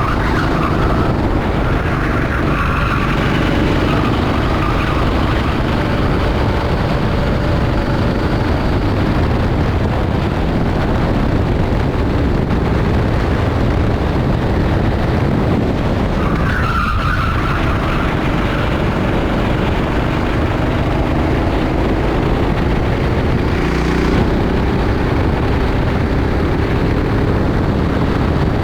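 Rental kart engine running at race pace, its pitch rising and falling with throttle through the corners, over constant tyre and track noise.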